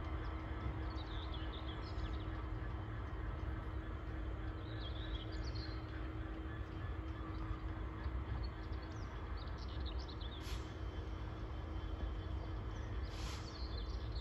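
Class 66 diesel locomotive's two-stroke V12 engine running with a steady low rumble and hum as it creeps slowly into a siding. Birds chirp now and then.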